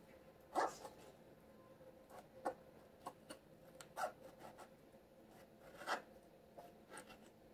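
A kitchen knife cutting the rind off an orange: faint short scraping cuts, scattered every second or two, the strongest about half a second in and again near six seconds.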